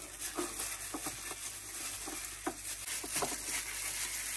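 Raw chicken pieces being mixed with spices in a ceramic bowl by a hand in a thin plastic glove: soft, irregular wet squishes and small taps, several a second.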